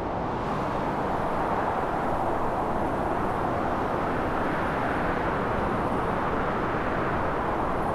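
Steady roar of storm wind, an even rushing noise with no tones or knocks in it.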